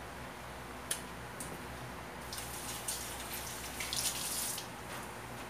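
Kitchen sink tap running for about two seconds as hands are rinsed under it. There is a sharp click about a second in.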